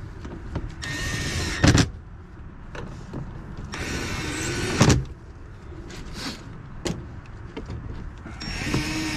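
Small cordless drill-driver spinning in short bolts on a car door panel: three short whirring runs about three seconds apart, each stopping with a sharp snap as the bolt seats.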